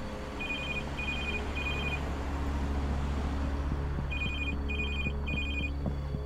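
Mobile phone ringing: an electronic ringtone of short trilling beeps in groups of three, one group just after the start and another about four seconds in, over a low steady hum.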